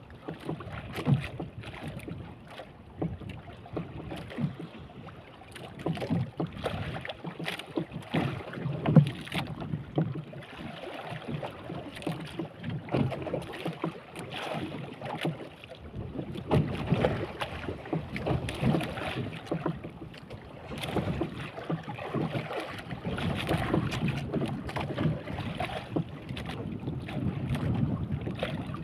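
Choppy sea water slapping and splashing against the hull of a small wooden boat, with irregular knocks and wind buffeting the microphone.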